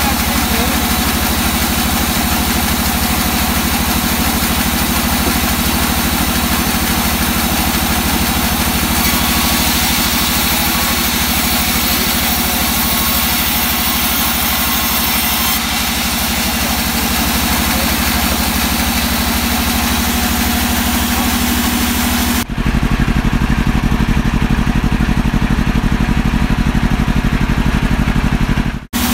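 Large vertical band saw running steadily, its blade ripping through a block of old teak with a constant hum and hiss, brighter between about 9 and 15 seconds in. About 22 seconds in the sound switches suddenly to a deep low rumble, which cuts off just before the end.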